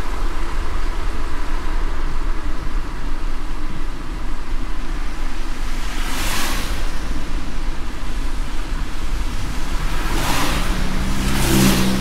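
Heavy rain with a steady low rumble, and cars swishing past on the wet road: one about six seconds in and two close together near the end, the last with a brief engine hum.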